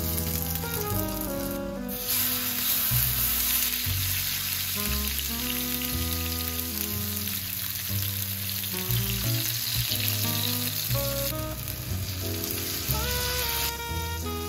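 Potatoes, tomato wedges and beaten egg frying in oil in a frying pan: a steady sizzle that grows loud about two seconds in and eases near the end. Background music plays underneath.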